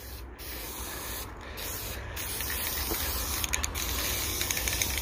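Aerosol spray-paint can spraying: a hiss broken by a few short pauses at first, then held longer and slowly growing louder.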